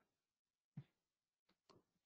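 Near silence: room tone during a pause in a lecture, with a faint soft thud under a second in.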